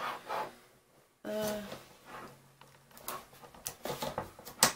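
A sheet of mixed media paper being slid and shifted into place on a paper trimmer: soft rustling, then a run of small clicks and taps, the sharpest near the end.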